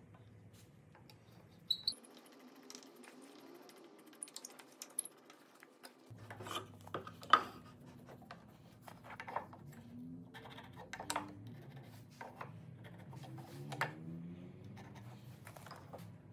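Light clicks, taps and knocks of wooden parts and hand tools being handled and set in place, with one sharper knock about seven seconds in.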